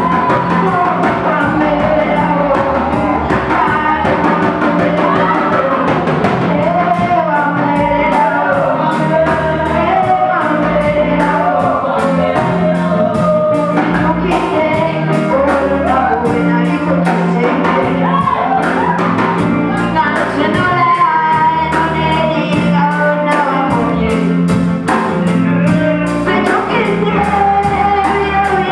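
Worship song: voices singing over a band, with a steady beat of drums and a bass line.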